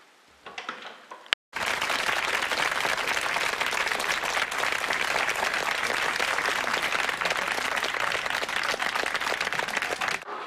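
Studio audience applauding: dense, steady clapping that cuts in abruptly about a second and a half in and stops just before the end. Before it, only a few faint clicks.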